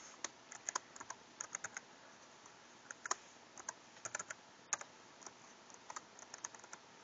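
Keys clicking on a computer keyboard in short, irregular clusters as a login password is typed in.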